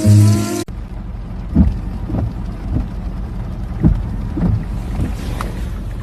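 Background music cuts off suddenly under a second in. Then a moving vehicle runs with a steady low rumble, broken by scattered soft thumps.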